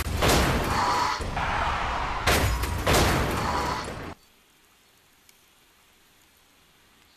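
Car crash sound effect: a small car smashing and scraping into a guardrail, several hard crunching impacts over about four seconds. It cuts off suddenly, leaving only a faint hiss.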